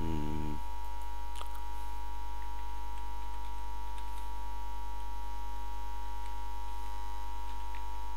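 Steady electrical mains hum on the recording, a low buzz with a thin whine near 1 kHz, with a few faint clicks scattered through it.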